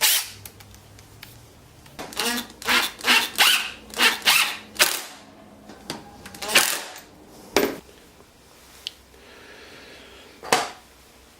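A series of short, sharp clicks and knocks, about a dozen in irregular bursts, some with a brief squeaky ring. This is small wooden and plastic mounting parts being handled and screwed together by hand.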